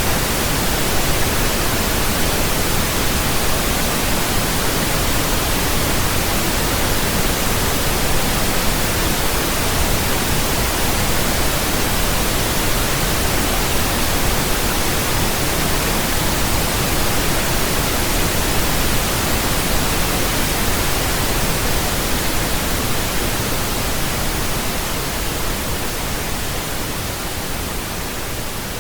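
Steady pink noise: an even, flat hiss spread over low and high pitches alike, growing somewhat quieter over the last few seconds.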